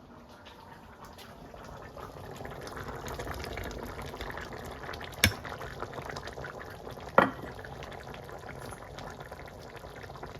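Green curry with coconut milk bubbling in the pot, a dense crackly simmer that builds over the first few seconds and then holds steady. Two sharp knocks stand out, about five and seven seconds in.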